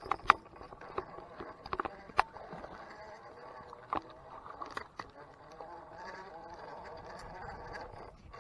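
Spinning reel being cranked to reel in a hooked bass: a wavering mechanical whir from the reel, with scattered sharp clicks in the first few seconds.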